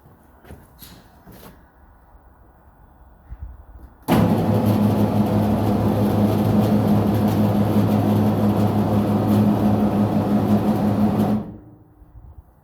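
Toyota Prius Gen 2's 1.5-litre petrol engine (1NZ-FXE) starting suddenly about four seconds in and running with a steady hum for about seven seconds, then shutting off. The mechanic has found this engine low on compression, which he blames for its failure to start when cold.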